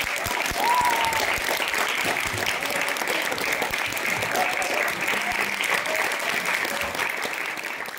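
Theatre audience applauding steadily at a curtain call, with a few voices calling out over the clapping; the applause fades near the end.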